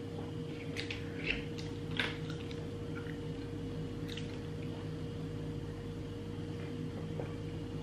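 Plastic water bottle handled and its screw cap twisted open: a few small crackles and clicks in the first two seconds and another about four seconds in, over a steady low hum.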